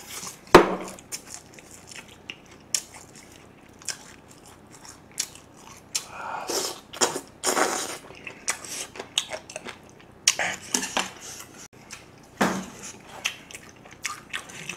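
Close-miked chewing and biting of spicy braised monkfish (agujjim) with bean sprouts: a steady run of small clicking mouth sounds, with a few louder, longer chews about halfway through and again near the end.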